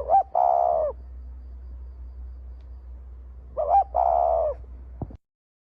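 An animal calling twice, about three and a half seconds apart. Each call is a short note followed by a longer, wavering note.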